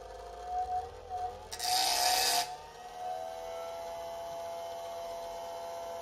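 Electric motor spinning a magnet-studded disc with a copper strip pressed against its face, heating the copper by friction. The whine wavers in pitch at first, a harsh scraping rasp comes about one and a half seconds in and lasts about a second, then the whine settles into a steady pitch.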